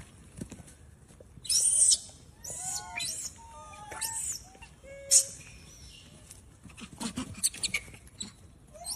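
Macaques calling: a string of short high squeals and arching chirp-like calls at irregular intervals, the loudest a shrill squeal about a second and a half in. Near the end come a few sharp clicks and rustles.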